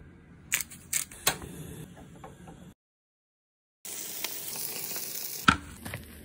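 Three sharp metal clacks as the hot sandwich press is handled, then, after a short break of dead silence, bacon sizzling in the closed press over a gas flame with a steady hiss, cut off by one loud sharp clack near the end.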